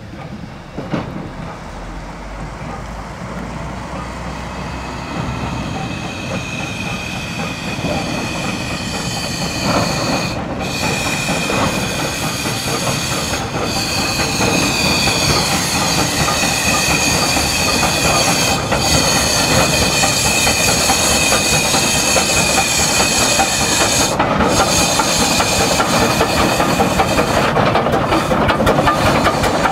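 Achenseebahn rack-railway steam tank locomotive No. 4 approaching slowly and passing close, growing steadily louder. Steam hisses from the cylinder drain cocks, and from about ten seconds in there is a high steady wheel squeal.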